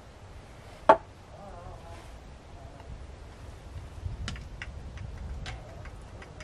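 Small objects being handled at a wooden table, giving scattered light clicks and ticks, with one sharp loud click about a second in and a few more clicks in the second half.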